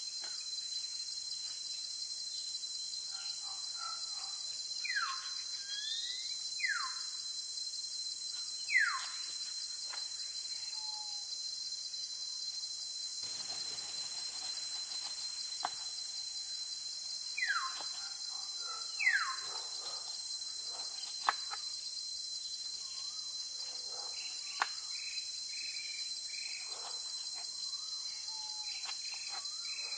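Steady high-pitched insect chorus with a bird calling over it: five loud descending whistles, a pair about 5 and 6.5 seconds in, one near 9 seconds and a pair around 17 to 19 seconds, then softer chirps near the end. A few sharp clicks come in between.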